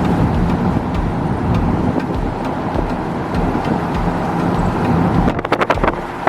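Steady road and engine noise inside a pickup truck's cab while driving. About five seconds in, a run of sharp clicks starts over it.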